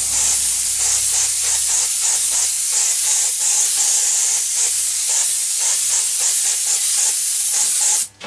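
Compressed-air paint spray gun spraying primer: a loud, steady hiss of air and atomised paint that cuts off suddenly when the trigger is released near the end.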